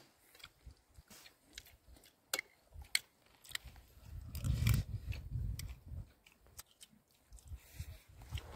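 Close-up chewing and crunching of meat on the bone, with scattered sharp clicks and crunches and a low muffled rumble about halfway through.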